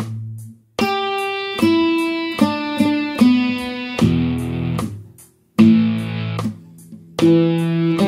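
Guitar playing a slow rock riff: two-string power chords that ring and are cut short, with a run of single notes in between, over a steady ticking beat about two and a half ticks a second.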